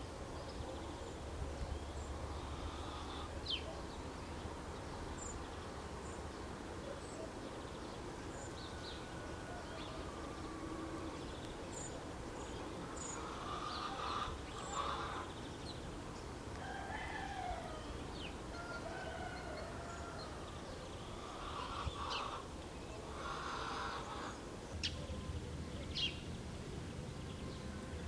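Village morning ambience: small birds chirping with short high calls throughout, and chickens calling a few times in the middle and later part, over a steady low rumble.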